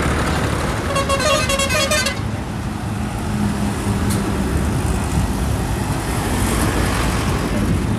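Diesel tractor engines running as a convoy of tractors with trolleys drives past, with a rapid pulsing horn sounding for about a second near the start.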